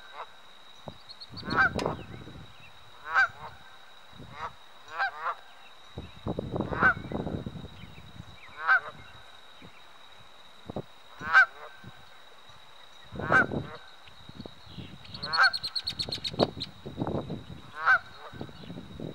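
Canada goose honking over and over, about ten short honks about one every one and a half to two seconds: an angry goose calling in alarm at an intruder near its pond.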